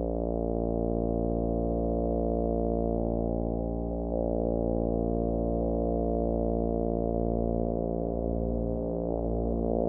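Home-built square-wave synthesizers holding a dense, steady electronic drone of many stacked tones. The texture shifts slightly about four seconds in and again near the end.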